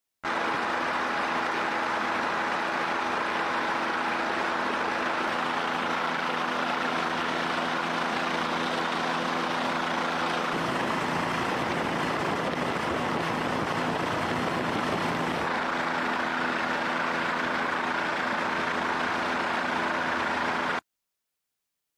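Steady helicopter engine and rotor noise with a constant low hum. About halfway through, the hum gives way to a rougher rushing noise for several seconds, then returns. The sound cuts off suddenly shortly before the end.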